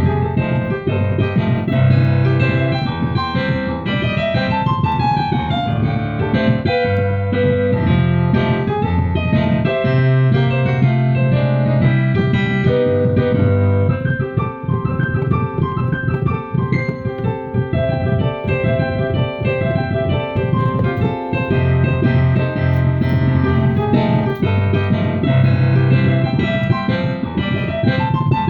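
Keyboard music: a piano-like instrument plays a busy run of notes over held bass notes.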